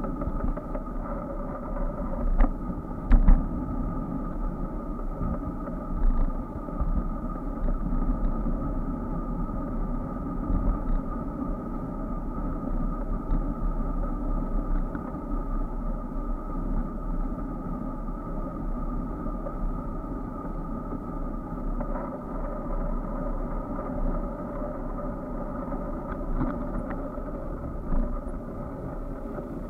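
Ride noise of a bicycle picked up by an SJ4000 action camera mounted on the bike: a steady, muffled rumble and hum, broken by a few short knocks from bumps. The loudest knocks come around two to three seconds in.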